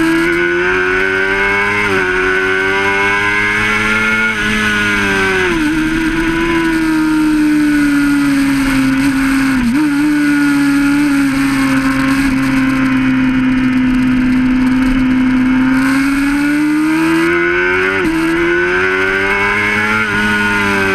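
Inline-four 600RR sport bike engine running at high revs on track. Its pitch climbs under acceleration and sags as the throttle closes, with a few sudden steps at gear changes. Wind rushes over the microphone.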